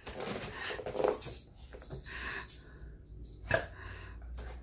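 A large dog's noises as it moves about over a raised pet cot, with one short knock about three and a half seconds in.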